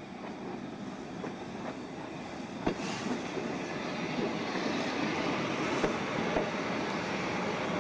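Replica Pacific Electric "Red Car" streetcar approaching and rolling past. Its wheels run on the rails, growing louder as it comes, with a few sharp clicks from the wheels on the track, the loudest about a third of the way in.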